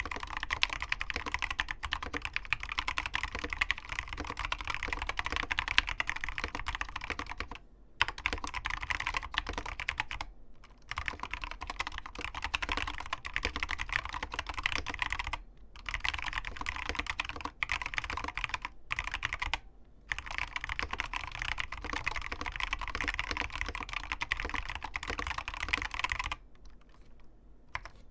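Fast typing on an ABKO Hacker K660 mechanical keyboard with Kailh Box optical linear switches and crystal OEM-profile keycaps: a rapid, continuous stream of keystrokes broken by a few short pauses. The typing stops shortly before the end, leaving only a few faint clicks.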